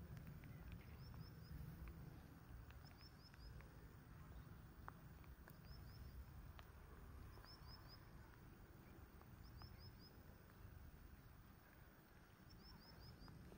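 Near silence, with faint high chirps in quick runs of three or four notes repeating every second or two, over a low rumble.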